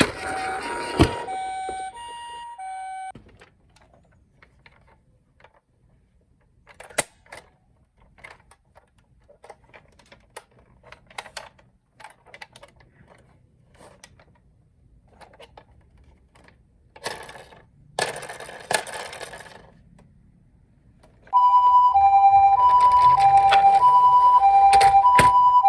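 Ambulance two-tone siren alternating a higher and a lower note in the Japanese "pee-poh" pattern. It starts loud about 21 seconds in, after a long quiet stretch of scattered small clicks and knocks. A shorter stretch of the same two notes fades out in the first few seconds.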